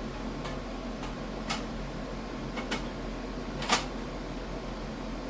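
A few light knocks and clicks from parts being handled, the loudest about three and a half seconds in, over a steady low hum.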